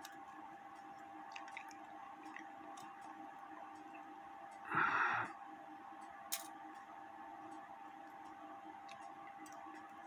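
Quiet handling of a cuckoo clock movement's metal parts: a few faint clicks, a brief rustling burst about five seconds in and a sharper single click just after, over a steady faint hum.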